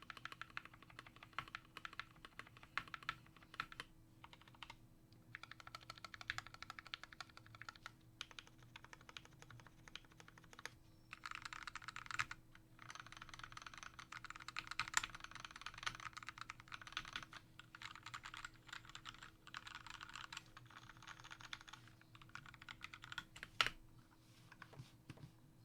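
Typing on a custom 60% mechanical keyboard with lubed Gateron Yellow linear switches, a brass plate, an acrylic case and pudding keycaps. Quick runs of keystrokes are broken by short pauses, and one key strike near the end is louder than the rest.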